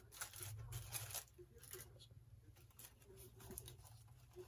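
Aluminium foil around a burrito crinkling and rustling as it is handled, a cluster of crackles in the first second, then only faint scattered crinkles.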